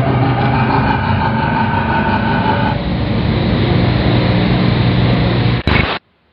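Loud, harsh droning noise with several steady tones layered through it, the distorted sound of a hijacked broadcast. It ends in a short burst of crackle and cuts off suddenly about six seconds in.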